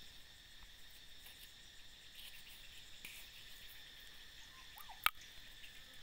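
Steady high-pitched insect chorus. One sharp click about five seconds in.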